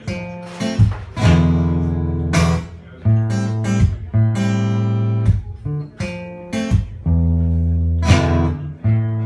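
Acoustic guitar strumming chords, each one left to ring before the next stroke, with no voice.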